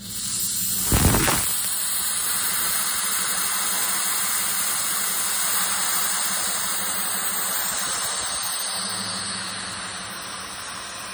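Compressed air hissing steadily out of a Vevor 5-ton triple-bellows air spring jack as its control valve is opened to lower the load, easing off slightly near the end. A heavy knock about a second in.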